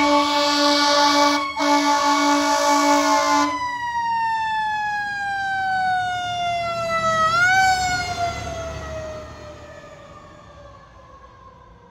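Fire engine's air horns blowing over its siren held at top pitch, with a short break about one and a half seconds in. The horns stop about three and a half seconds in and the mechanical siren winds down in a long falling wail. It is revved back up briefly about seven and a half seconds in, then keeps falling and fades as the truck pulls away.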